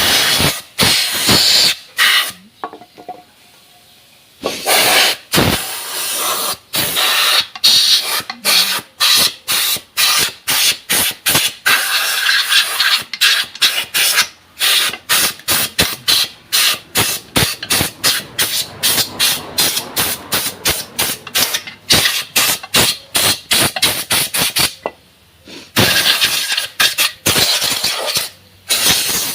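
Compressed-air blow gun hissing in many short, rapid bursts, blasting dirt off a motorcycle clutch cover, with brief pauses a couple of seconds in and again near the end.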